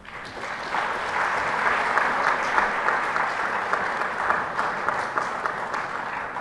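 Audience applauding: the clapping builds up over the first second, holds steady, and thins out slightly near the end.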